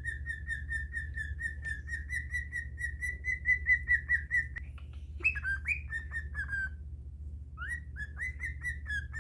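Cockatiel whistling: a long, rapidly pulsing call held on one pitch for about four seconds, then a few short rising chirps, a brief pause, and the pulsing call again, over a steady low hum.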